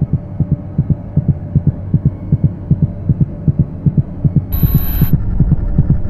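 Rapid, regular low thumps like a pounding heartbeat over a steady low hum, a pulsing soundtrack drone. About four and a half seconds in, a harsh, high burst of static lasts about half a second, and the low rumble grows louder.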